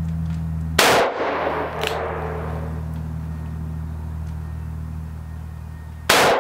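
Two gunshots from a Taurus Tracker 627 revolver firing .357 Magnum rounds single action, about five seconds apart. Each is a sharp crack that trails off in a short echo.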